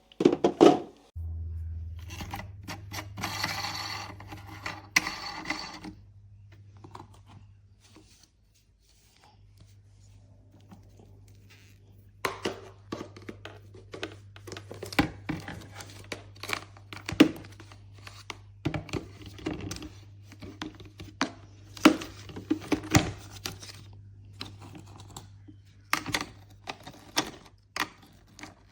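A low, steady mains hum from the air cooler's small water pump starts abruptly about a second in and keeps going, under many irregular clicks, knocks and scrapes of the plastic tank and parts being handled.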